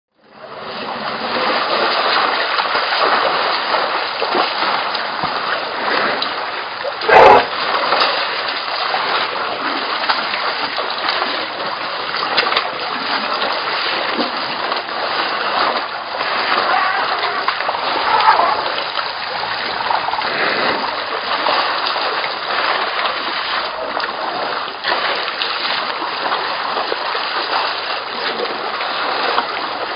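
A herd of African elephants drinking and wading in a waterhole: steady splashing and sloshing of water, with one brief loud burst about seven seconds in.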